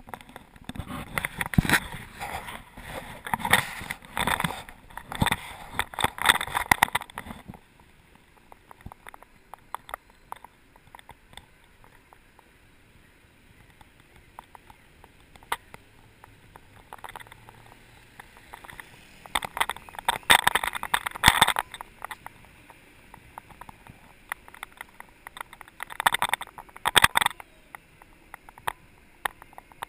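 Scratchy rubbing and rattling on the microphone of a camera riding on a moving Segway, loud and crackly in bursts for the first seven seconds, then faint, then back in bursts about two-thirds of the way in and again near the end.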